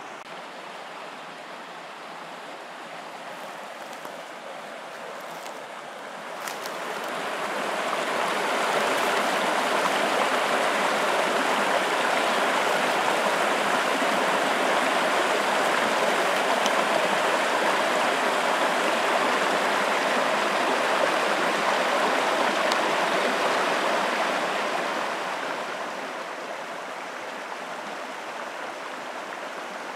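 Mountain stream rushing over boulders and small cascades, a steady rush of water. It swells louder about a quarter of the way in and drops back near the end.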